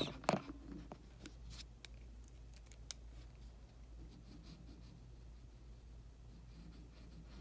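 Pencil sketching on paper: faint, scattered scratching strokes over a low steady hum.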